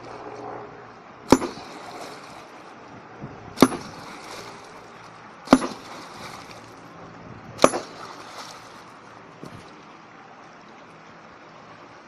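Four heavy hammer blows struck down into a shallow river onto the rocks, about two seconds apart, each a sharp crack followed by a splash, over the steady rush of the stream. This is hammer fishing: striking stones to stun the fish sheltering beneath them.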